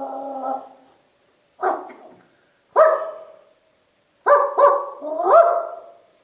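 Dog-like howl and barks: the tail of a falling howl fades out at the start, then five short barks, two spaced about a second apart and then three in quick succession.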